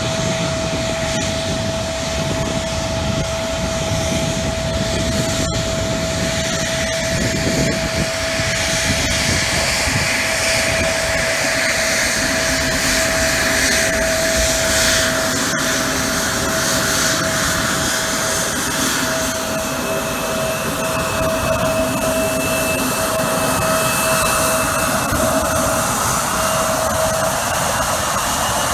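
Bombardier CRJ regional jet's rear-mounted turbofan engines running at taxi power: a steady whine over a continuous rush, with a second, higher whine joining about two-thirds of the way through.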